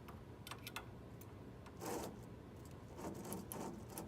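Small metal parts being handled: light clicks and clinks, with a short rustle about two seconds in and a cluster of small clattering clicks near the end.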